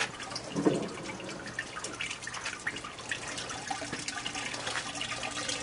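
Juice from fermented Petite Sirah grapes running and dripping out of a cider press into a bucket as pressing begins.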